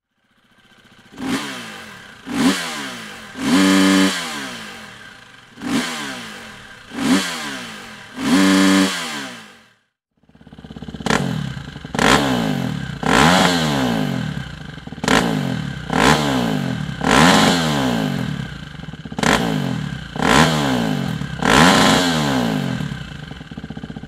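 Gas Gas EC 350F's single-cylinder four-stroke engine revved through a Dominator MX exhaust in sharp throttle blips, the revs falling back after each. There are six blips in the first ten seconds, two held briefly. After a short break it idles with quick blips about once a second.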